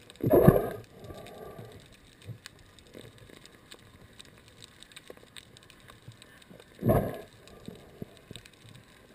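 Underwater sound heard through a GoPro dive housing: faint continual crackling clicks, broken twice by a loud muffled rush, about half a second in and again near seven seconds.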